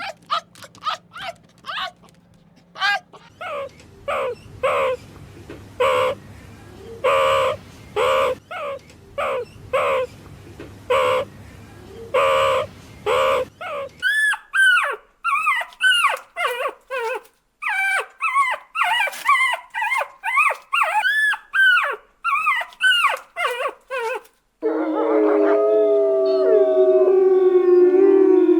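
A dog barking in a steady series of short barks, then high yelps that rise and fall in pitch. Near the end a long, drawn-out, wavering tone starts suddenly.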